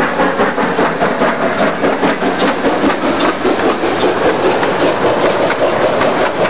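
Narrow-gauge maintenance-of-way train, including the OB pile driver car, rolling steadily past behind a steam locomotive: a continuous rumble with rapid clicking of wheels over rail joints.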